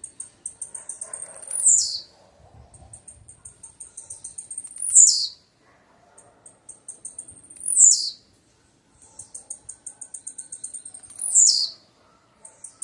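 Blue-black grassquit (tiziu) singing: a repeated high phrase, each a quick run of short ticking notes ending in one loud down-slurred note, given four times with short pauses between.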